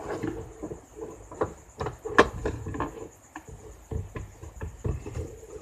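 Irregular small knocks, clicks and scraping from hands groping inside the plastic spin-dryer drum of a twin-tub washing machine, working at a small item caught in the clogged spinner. A faint steady high-pitched insect-like whine sounds throughout.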